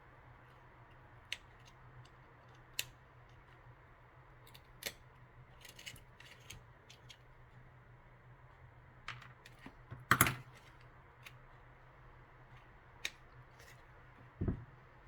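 Scattered small clicks and snaps of plastic and metal parts as a Samsung Galaxy Folder 2 flip phone is taken apart, with a louder snap about ten seconds in and a dull knock near the end. A steady low hum underneath.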